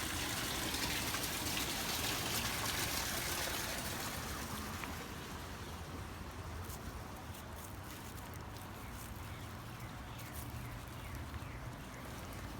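Rain with running, trickling water, loudest over the first four seconds or so and then easing off, with scattered small taps later on.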